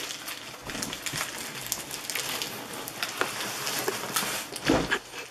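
Paper rustling and crinkling, like wrapping paper, tissue paper and gift bags being handled, with many small crackles and a heavier thump near the end.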